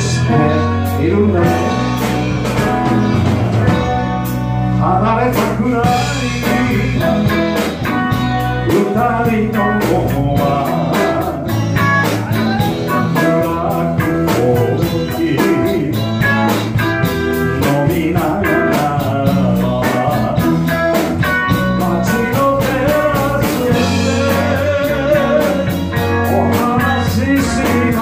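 A live rock band playing a 1960s Japanese group-sounds song: a singer over guitar and drums, with a steady beat.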